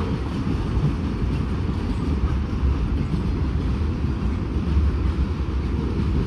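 Norfolk Southern freight train's cars rolling past, boxcars and then tank cars, making a steady low rumble of wheels on rail.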